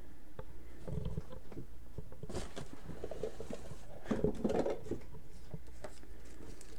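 Light rustling and soft clicks of packaging and accessories being handled while an Android TV box is unpacked, over a low steady hum, with the busiest handling about a second in and again around two and four seconds in.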